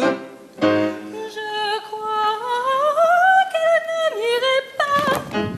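Operetta singing: one voice holds a wavering note that glides slowly upward and then drops about four seconds in. A short burst of noise comes about five seconds in.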